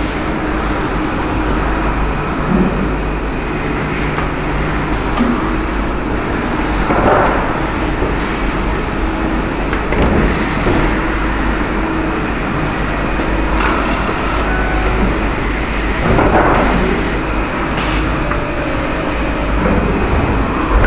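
Steady din of CNC machine-shop machinery running, with a constant low hum and a few brief louder bursts.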